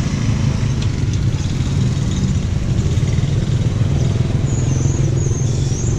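Close street traffic: motor scooter and motorbike tuk-tuk engines running steadily nearby, with a thin, wavering high-pitched squeal near the end.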